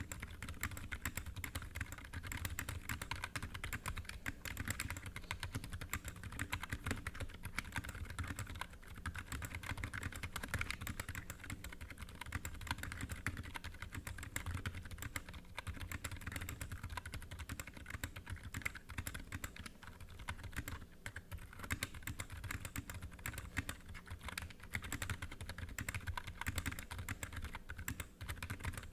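Typing sound test on a NovelKeys NK65 Entry Edition 65% mechanical keyboard with Gazzew Boba U4 silent tactile switches and Cherry-profile dye-sub keycaps: a fast, continuous run of keystrokes.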